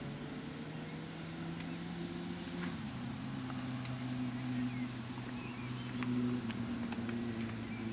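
Nitro RC car engine idling steadily, dropping slightly in pitch about three seconds in, with small birds chirping in the background.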